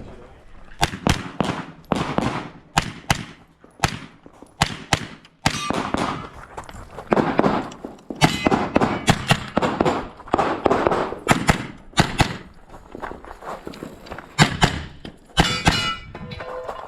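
A string of gunshots fired during a timed stage of a practical shooting competition. The shots come singly, in quick pairs and in fast groups, with short pauses between groups. Each shot has a short echo.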